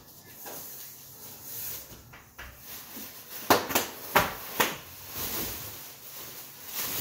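Bubble wrap and packing rustling inside a large cardboard box as a wrapped item is handled and lifted out, with about four sharp crackles in quick succession around the middle.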